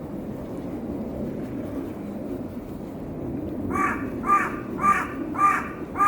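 A bird giving five cawing calls in quick succession, about two a second, starting near the end, over a steady low background noise.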